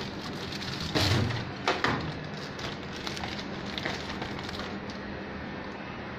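Washing machine running with a steady hum, two loud bangs about a second in, close together, then a stretch of lighter knocks and rattles.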